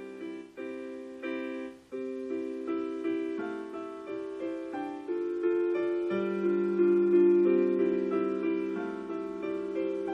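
Background piano music: a slow, gentle melody of notes that start cleanly and fade.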